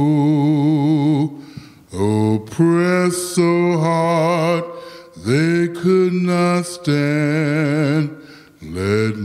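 A man singing solo and unaccompanied into a microphone: slow phrases of long held notes with a wide vibrato, separated by short pauses.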